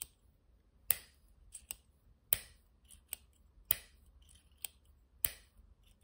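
Brass click mechanism of an Autmog 36 clipless click pen being worked with the thumb: a series of sharp clicks, irregularly spaced.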